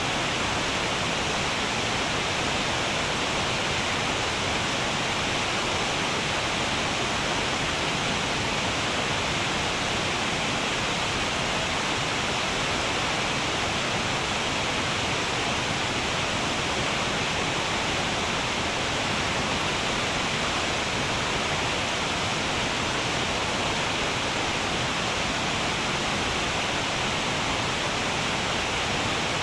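Waterfall: falling water rushing in a steady, even hiss with no breaks or changes.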